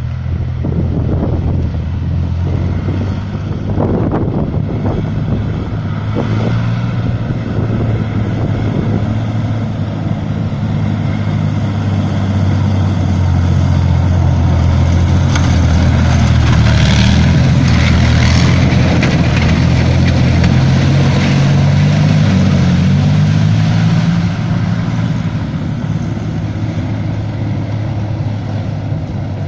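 BMP-1 tracked infantry fighting vehicle driving past, its UTD-20 V6 diesel engine running under load over the rumble of its tracks. It grows louder as it comes close, is loudest around the middle, and drops off near the end as it drives away.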